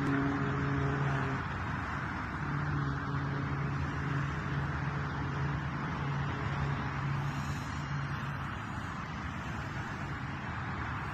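Twin electric motors of a mini RC plane buzzing in flight: a steady low hum that drops out briefly about a second and a half in, over a steady hiss.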